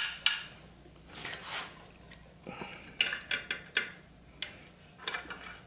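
Metal hose-removal pliers clicking and scraping against a fuel-line fitting as they wiggle a stuck, rock-hard old rubber fuel hose. A string of sharp clicks, bunched about three to five seconds in, with softer rubbing between.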